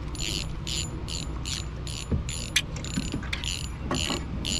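Spinning reel being cranked to retrieve a lure: a quick, even rhythm of short gear whirs, about three a second.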